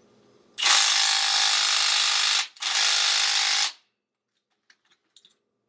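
Milwaukee M18 cordless impact wrench hammering on a cylinder-head bolt in two bursts, the second shorter, without breaking it loose.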